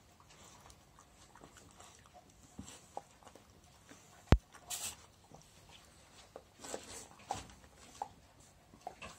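Elderly black Shiba Inu eating from its food bowl: scattered small clicks and short wet chewing and licking noises, with one sharp click about four seconds in.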